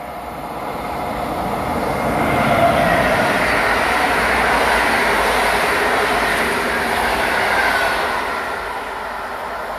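Passenger train passing through a station at speed, with steady wheel-on-rail rumble. It swells over the first couple of seconds, stays loud for about five seconds, and eases off near the end.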